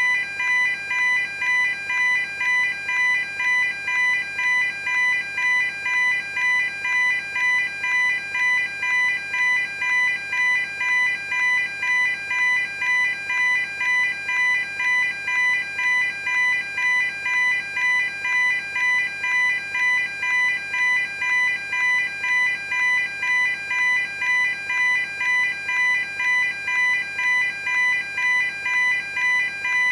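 Level crossing warning alarm sounding continuously, a steady pulsing ring of about two strokes a second.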